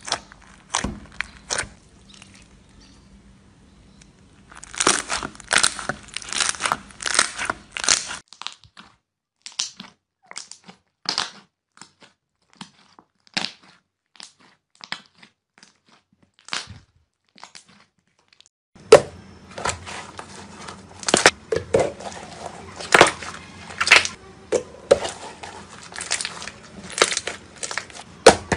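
Hands squeezing, poking and kneading slime, making quick sticky pops, crackles and squelches. These come in dense runs, with only scattered single pops through the middle stretch.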